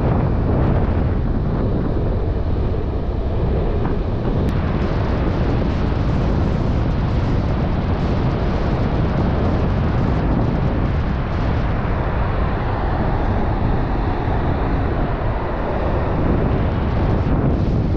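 Wind buffeting the camera's microphone, a loud, steady low rumble.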